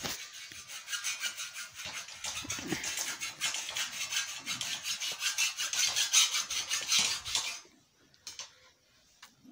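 Hacksaw cutting through a steel reinforcing bar: rapid, even rasping strokes that stop abruptly a couple of seconds before the end.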